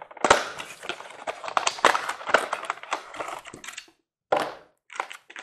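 Clear plastic blister tray crackling and crinkling as it is handled: a dense run of sharp crackles and clicks for about four seconds, then a few shorter crackles.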